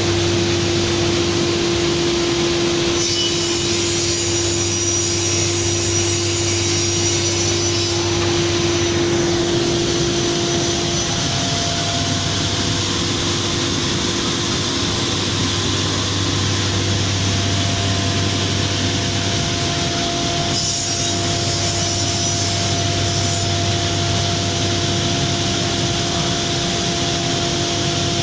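Biesse Rover C6 CNC machining centre machining a wooden panel: the router spindle and dust extraction run as a steady loud noise with a hum whose tone shifts partway through.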